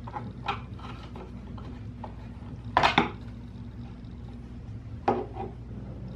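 Scattered clicks and knocks of a screwdriver and particleboard panels being handled while the cam-lock fasteners of a flat-pack cabinet are tightened, with a louder double clatter about three seconds in.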